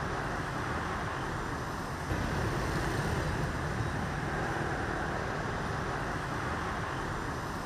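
Steady street traffic noise from motorbikes and cars passing, a little louder from about two seconds in.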